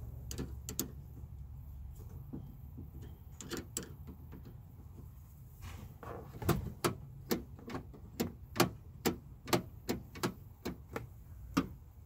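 Door lock mechanism and linkage rods inside a pickup door, clicking as they are worked by hand. A few scattered clicks come first; then, about halfway in, about a dozen sharp clicks follow at roughly two a second.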